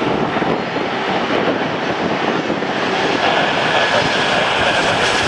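Jet engines of a British Airways Embraer E-Jet airliner on approach, a steady whine that grows a little louder from about three seconds in. Under it is a constant hiss of heavy rain and wind striking an umbrella held over the microphone.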